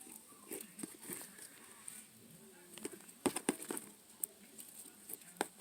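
Faint scattered handling noises and clicks, with a few sharper clicks a little past halfway and another near the end.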